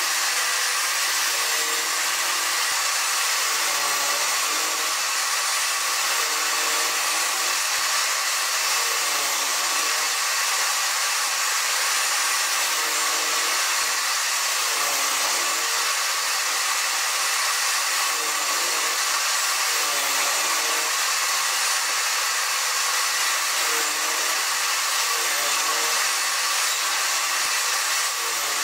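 Table saw running steadily while it cuts a series of narrow notches in a pine block fed through on a crosscut sled, making the slots of a finger (box) joint.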